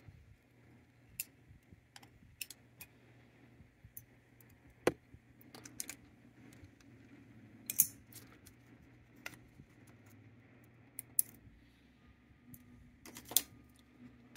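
Irregular small metallic clicks and clinks of a screwdriver and loose nuts and washers against the steel bracket of a pinball drop-target assembly as it is taken apart by hand, with a few sharper clinks scattered through.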